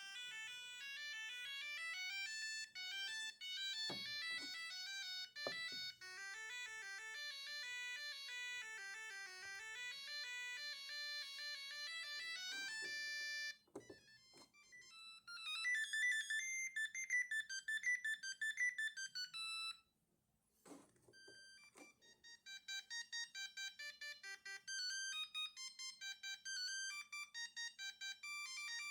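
Siemens A50 mobile phone playing its built-in ringtone melodies one after another: a first tune of about thirteen seconds, then one with fast trilling notes, a short silent gap, and a third made of quick repeated notes. A few sharp clicks come during the first tune and between the tunes.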